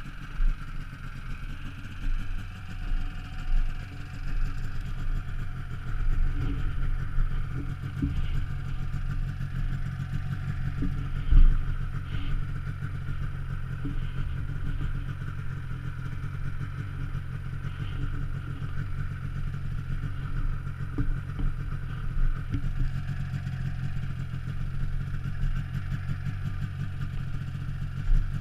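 Yamaha snowmobile engine running steadily at low speed while the sled travels over snow. Occasional knocks and rattles come through, the loudest about eleven seconds in.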